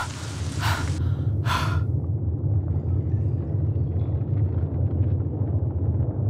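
Ambient sound design: a steady low rumbling drone, with three short hissing breaths in the first two seconds.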